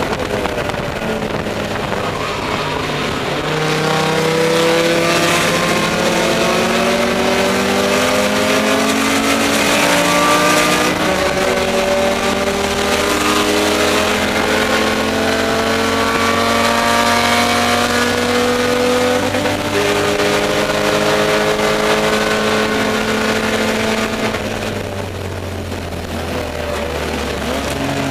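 Spec E30 BMW's straight-six race engine heard from inside the stripped cabin, pulling hard with rising revs and upshifting twice. Near the end it lifts off and the engine note drops.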